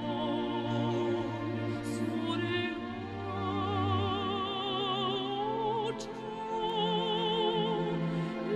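A woman's operatic voice sings a slow Basque song line with wide vibrato over an orchestra.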